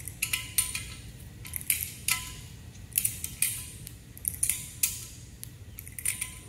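A wrench tightening the nuts on concrete wedge anchor bolts at a steel post's base plate: irregular sharp metallic clicks and clinks, a couple every second or so, some ringing briefly.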